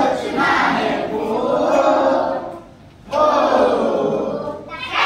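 Many voices raised together in long, drawn-out phrases, like a group chant, in two stretches with a short break about two and a half seconds in.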